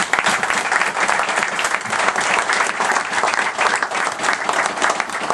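Audience applauding, many people clapping hands in a dense, steady patter after a speech.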